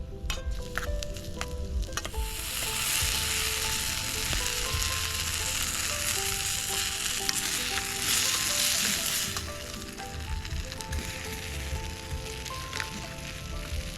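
Food frying in a hot pan over a campfire, a stir-fry sizzling. The sizzle swells loud about two seconds in and eases after about nine seconds, after a few sharp clicks at the start.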